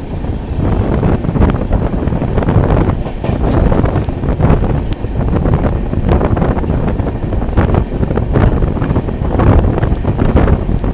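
Wind buffeting the microphone from the open side of a moving passenger train, over the steady running rumble of the coaches on the track, with a few faint clicks.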